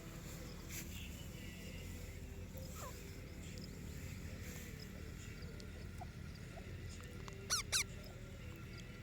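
Green ringneck parrot giving two sharp, loud squawks in quick succession about a second and a half before the end, after a fainter falling call about three seconds in.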